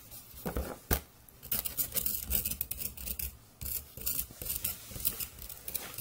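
Plastic digging tools scraping and scratching at a plaster block, in quick irregular strokes, with one sharp knock about a second in.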